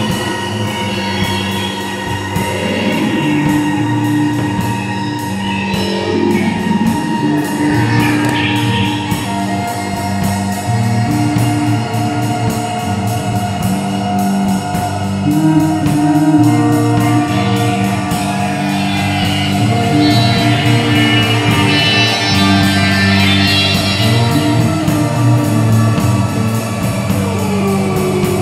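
Live experimental band jam: held bass notes and guitar over a fast, even ticking pulse, with electronic loops mixed in.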